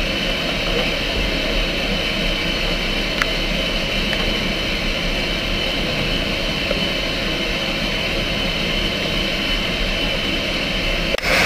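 Steady hiss of steam escaping from a pair of standing Ivatt Class 2MT tank locomotives, with a low rumble beneath. It breaks off abruptly just before the end.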